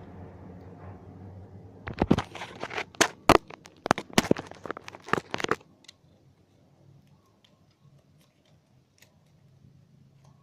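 Slime being squeezed and stretched by hand, with dense crackling and popping for about three and a half seconds, starting about two seconds in, followed by a few faint clicks.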